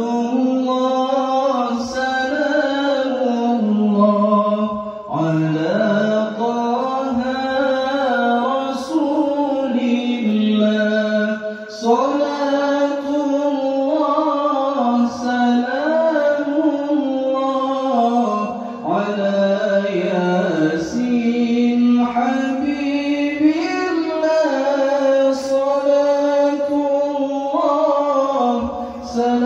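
One man chanting a melismatic Arabic devotional melody into a microphone, with long held notes bent and ornamented, and a short breath pause every few seconds.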